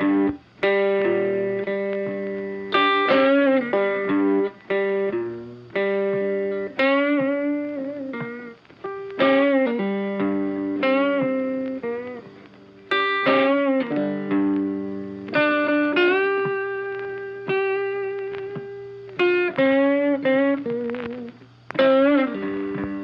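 Background music on guitar: picked notes and chords that ring and fade, with bent and wavering notes, a new phrase every second or two.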